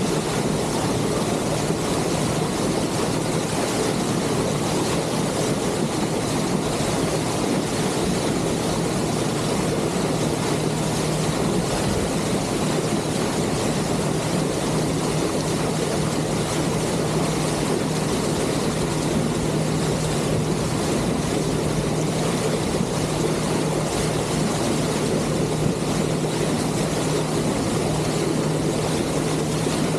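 Passenger boat under way, its engine droning steadily with a low hum, over a continuous rush of water at the bow and wind.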